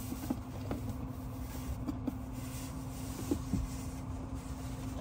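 A few faint knocks and clicks of plastic being handled as a cup holder ring is pushed and worked into a plastic console tray, over a steady low hum.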